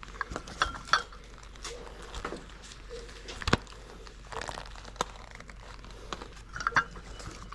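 Scattered light knocks, clinks and crinkling, as of small objects and plastic being handled and moved about on a table, with a sharp knock about three and a half seconds in.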